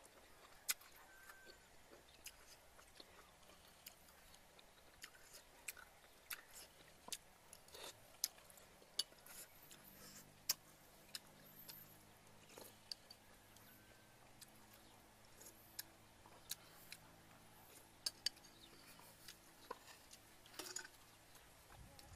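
Close-up eating sounds: faint chewing and mouth clicks, with scattered sharp clicks and taps of a metal spoon against a bowl.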